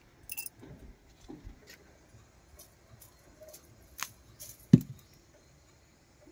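Bitter gourds being picked off a dried-out vine: light rustling of dry leaves and stems with small ticks, and two sharp clicks a little after the middle, the second the loudest.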